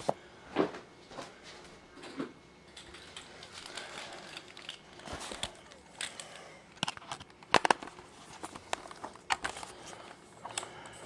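Handling noise as a camera is set up on a tripod: scattered clicks and knocks with light rustling, the sharpest click about seven and a half seconds in.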